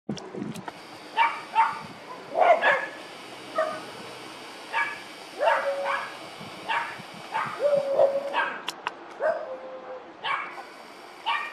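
A dog barking repeatedly, a dozen or so short barks at irregular intervals, some drawn out into a brief held yelp.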